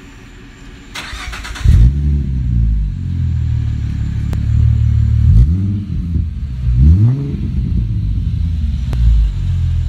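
Ford Mustang 3.7 L V6 with a Bassani axle-back exhaust on a cold start: the starter cranks briefly about a second in, the engine catches with a loud flare and settles into a deep idle, then is revved twice, around the middle.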